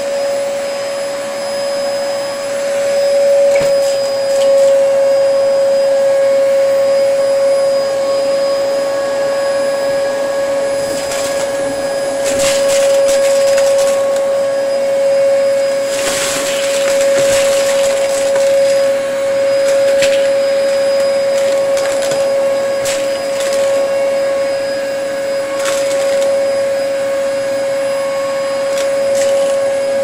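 Dyson upright vacuum cleaner running steadily with a constant high motor whine, as it is pushed through a mess-test pile of debris on carpet. Several short crackling rattles, the clearest about a third and just past halfway through, as debris is sucked up.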